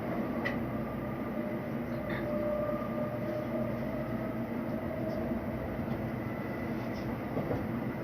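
Interior noise of a Tokaido Shinkansen passenger car arriving at a station: a steady rumble with faint whining tones and a couple of light clicks.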